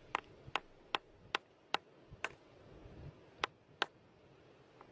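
Light taps on a rock to crack it open and reach a fossil inside: about eight sharp ticks, a quick run of six and then two more after a short pause.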